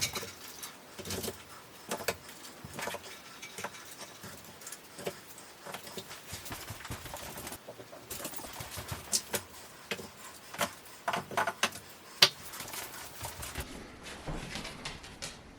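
Short split firewood pieces being stacked into a steel log rack: irregular wooden knocks and clunks as logs are set down against each other, one sharper knock about 12 seconds in.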